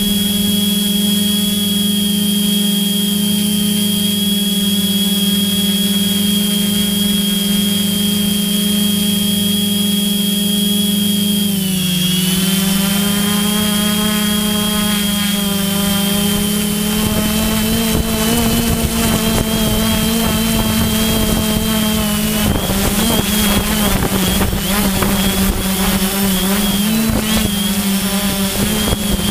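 FPV drone's motors and propellers heard from its onboard camera: a steady hum with a high whine that dips in pitch about twelve seconds in and picks up again. In the second half, wind buffets the microphone.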